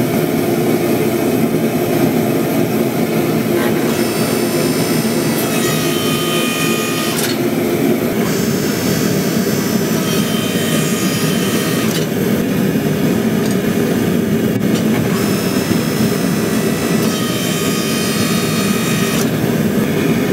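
A lit forge's burner running with a steady rushing noise. A higher whistling tone comes and goes every few seconds.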